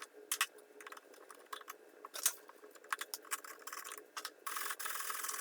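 Hand work on a small metal fridge: scattered light clicks and taps of tools and parts, then a rasping scrape lasting just over a second, about four and a half seconds in.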